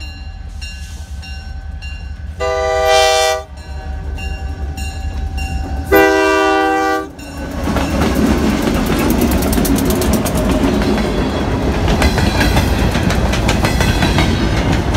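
Diesel freight locomotive sounding its horn in two blasts of about a second each, the second louder, then passing close by: a steady rumble of wheels on the rails with rapid clicking and clattering as the locomotive and freight cars roll past.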